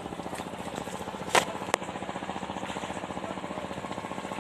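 An engine running steadily with a fast, even pulse of about nine or ten beats a second. Two sharp knocks come close together about a second and a half in, the first one louder.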